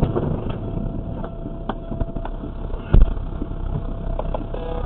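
Inside a crash-damaged car as it keeps rolling along the road: steady low road and engine rumble with scattered knocks and rattles, and one heavy thump about three seconds in.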